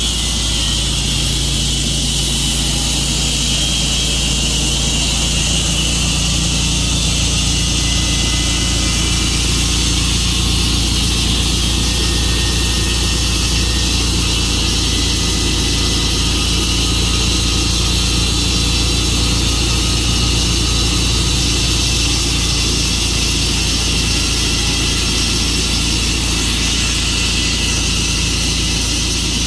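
Engine-driven Tru-Cut portable sawmill running steadily under load as its blade cuts through a maple log, with water applied to the blade.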